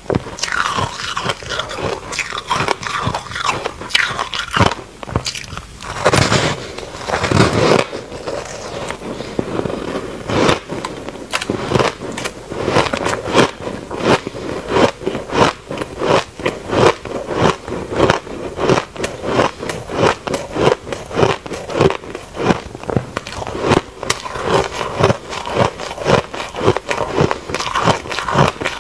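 Close-miked chewing of a mouthful of frozen compressed shaved ice: a steady run of crunches, about two a second, with a heavier, longer crunch about seven seconds in.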